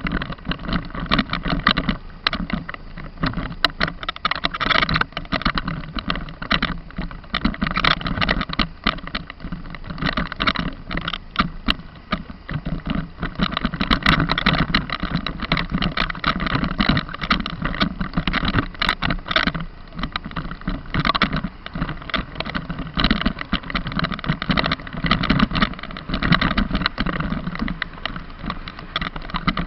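Vehicle driving on a rough forest road, its engine running under constant rattling and knocking, the level rising and falling with the bumps.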